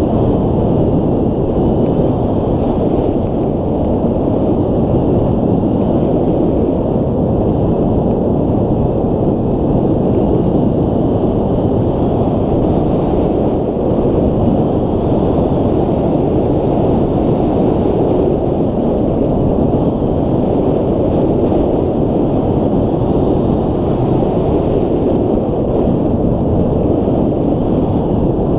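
Steady rush of wind buffeting the microphone of a camera mounted on a hang glider's wing in gliding flight.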